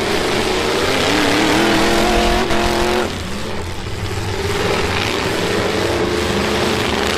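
Demolition-derby pickup truck engines revving hard, the pitch rising and wavering as they push; the sound drops suddenly about three seconds in, then the revving picks up again.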